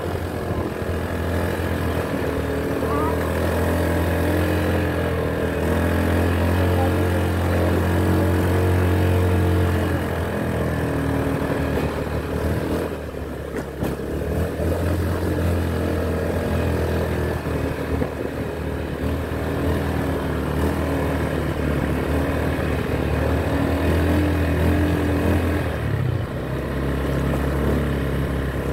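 Small automatic motor scooter engines running steadily on the move, the note easing off briefly about halfway through and shifting again near the end.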